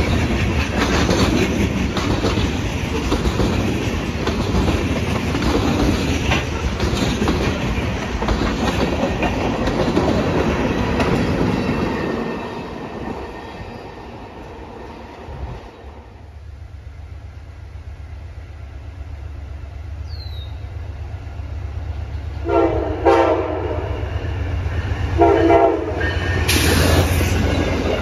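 Freight train cars rolling past, the sound fading as the end of the train recedes. Then an approaching Amtrak passenger train sounds its horn twice, a longer blast and then a shorter one about two seconds apart, and its cars begin rushing past near the end.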